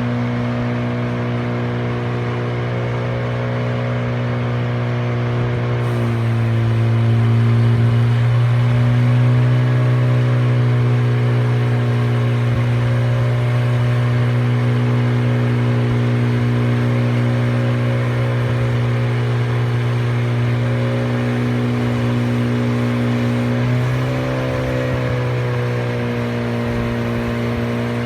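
Portable sawmill's engine running steadily; its pitch drops for a few seconds about six seconds in and again near the end, then recovers.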